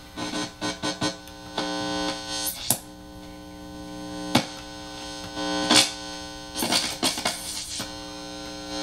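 Guitar amplifier humming and buzzing through a c.1977 Electro-Harmonix Muff Fuzz pedal with no guitar plugged in, broken by a string of sharp pops and crackles as cables and jacks are handled. The buzz swells louder in a few stretches, a sign that the pedal is passing signal.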